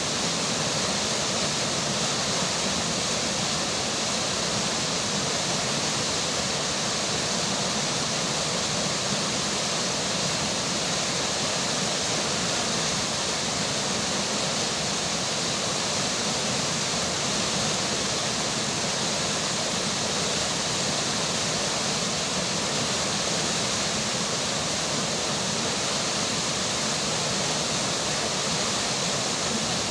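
Rushing river water flowing steadily, an even hiss that does not change.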